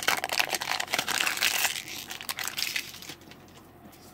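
The foil wrapper of a Magic: The Gathering booster pack crinkling as the stack of cards is pulled out of it. It is a dense crackly rustle that stops about three seconds in.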